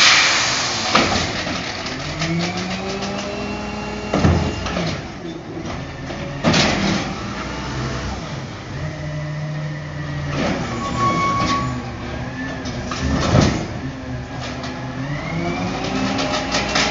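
Natural-gas Mack MRU recycling truck with an Amrep automated side-loader arm at work: the engine revs up and down repeatedly to drive the arm's hydraulics. Several loud clanks sound as carts are handled.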